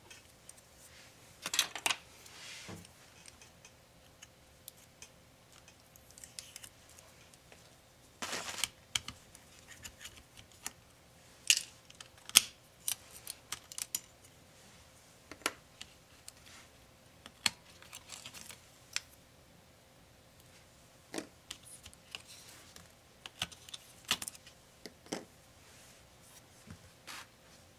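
Small screwdriver and fingers clicking and tapping on a laptop's plastic and metal parts while its screws are worked out, in irregular sharp clicks and short clusters of taps.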